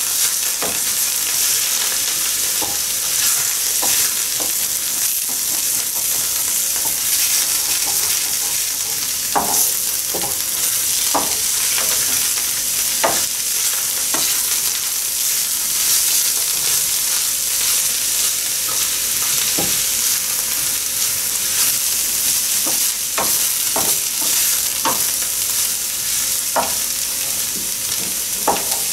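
Grated pumpkin, carrot and onion frying in oil in a pan with a steady sizzle, while a wooden spatula stirs them, scraping and knocking against the pan every second or so.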